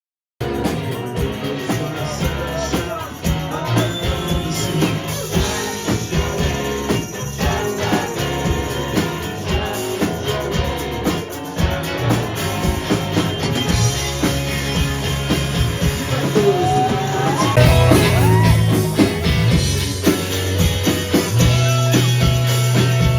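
Music with singing and a steady beat, starting abruptly about half a second in after a moment of silence.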